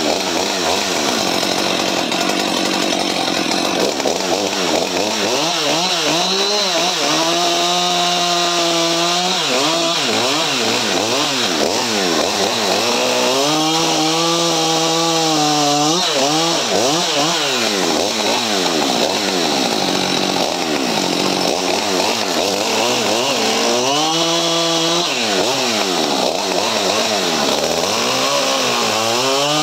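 Husqvarna 550 XP Mark II 50 cc two-stroke chainsaw running hard while cutting firewood rounds. Its pitch keeps swinging up and down, with three spells of a couple of seconds held at a steady high pitch.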